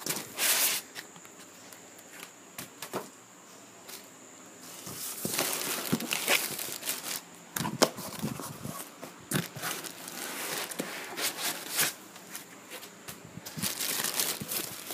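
Plastic wrap crinkling and cardboard rustling as hands dig through a TV's packing box, in irregular crackles. It is sparse for the first few seconds, then busier from about five seconds in.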